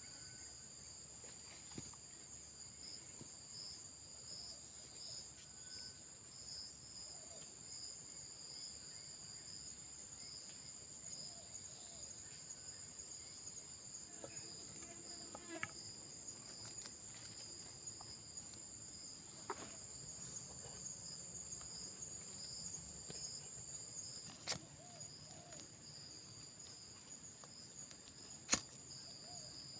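A chorus of forest insects chirring steadily at a high pitch. Two sharp clicks come near the end.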